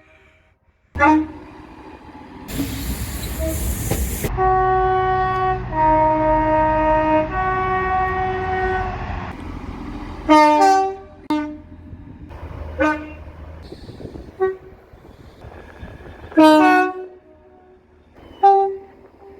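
Train horns sounding in turn. A short toot about a second in is followed by a brief loud rushing noise. Then a long two-tone horn sounds high, low, then high again for about five seconds, and several short single toots follow.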